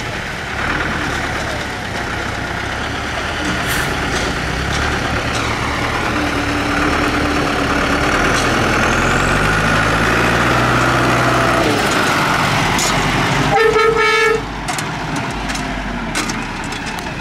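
Zetor tractor's diesel engine labouring through a muddy ditch; its note climbs for a few seconds, then drops. A vehicle horn toots once, briefly, about three-quarters of the way through, louder than the engine.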